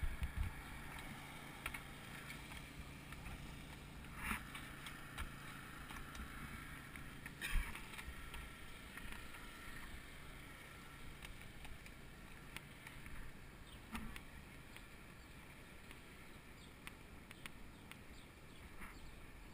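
Faint riding noise of a bicycle rolling along an asphalt road, with a few sharp knocks, the loudest about 4 and 7.5 seconds in.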